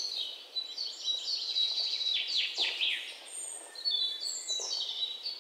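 Songbirds singing: a busy run of high chirps, trills and quick downward-sweeping whistles, thickest in the middle and thinning near the end.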